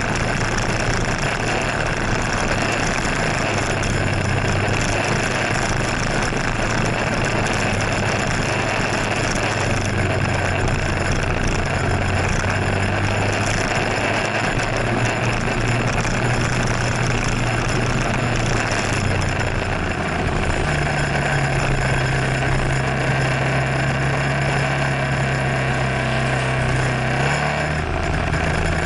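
Motor scooter's small engine running while riding in traffic, under a steady rush of wind and rain noise on the microphone. The engine's low hum shifts in pitch, then holds one steady note through the last third.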